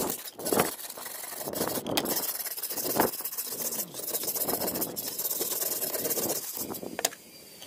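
An abrasive block scrubbing back and forth across a wet, rusty steel cleaver blade in a tray of water: a gritty, wet scraping in repeated strokes about once a second, with a few sharp clicks, stopping about seven seconds in.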